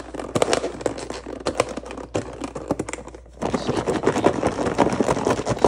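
Edamame pods rattling and clicking against each other and the sides of a closed bowl as it is shaken, with the rattle growing denser and louder about three and a half seconds in.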